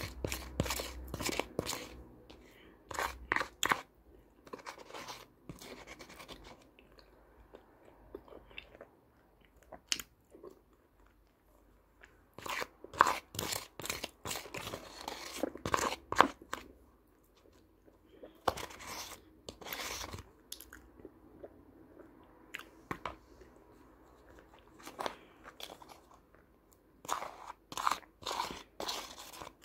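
Ayilo (edible clay) paste and crumbs being eaten close to the microphone: bursts of crisp crunching and chewing, with a plastic spoon scraping and stirring through the paste in a plastic tub. The crunching comes in several clusters separated by short quiet stretches.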